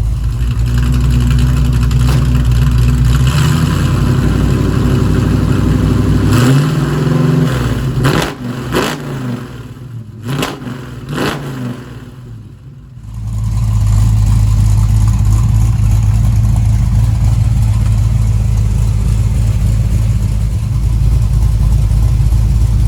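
Small-block Chevy 350 V8 running through its exhaust: it revs up about six seconds in, gives a few quick blips that fall away, then settles into a steady, loud low rumble from about thirteen seconds on.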